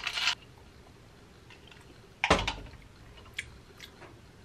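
Kitchen handling sounds while creamer is added to a cup of iced coffee: a brief scrape at the start, one sharp knock about two seconds in, like a container set down on the counter, then a couple of light clicks.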